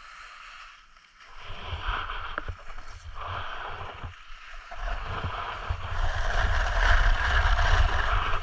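Snowboard sliding and carving over packed snow: a continuous scraping hiss from the board's edges, with a low rumble underneath. It is quiet for about the first second, drops out briefly around four seconds in, and grows louder through the second half as the board picks up speed.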